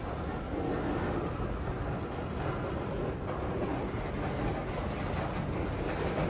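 Wheeling & Lake Erie freight train rolling past, a steady rumble of steel wheels on rail.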